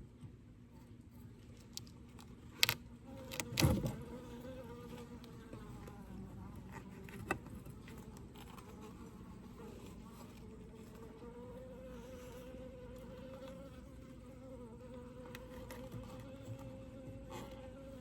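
Honeybees buzzing around an open hive, a steady buzz that wavers slightly in pitch, with a couple of sharp knocks about three seconds in.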